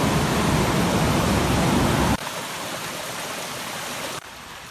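Ocean surf breaking and washing up a sandy beach, a loud steady rush. About two seconds in it cuts off abruptly to a much quieter steady trickle and rush of a small creek.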